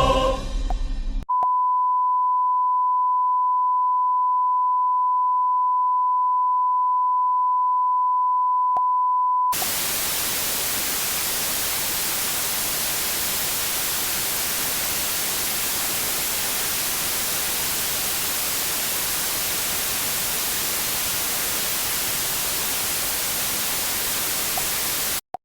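The last choral notes of an anthem die away, then a steady single-pitch test tone of a TV station sign-off sounds for about eight seconds. It gives way to an even off-air television static hiss that cuts off suddenly near the end.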